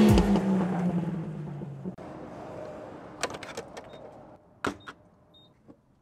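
A vehicle driving off along a dirt road, its sound falling slightly in pitch and fading away over the first few seconds, followed by a few sharp clicks.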